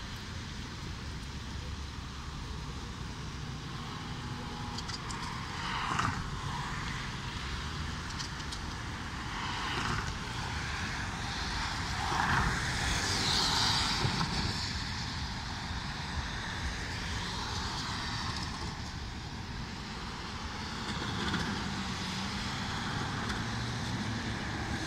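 Cars driving across a railroad crossing on a wet road, the tyre hiss swelling and fading as each one passes. The loudest pass comes about halfway through, over a steady low background rumble.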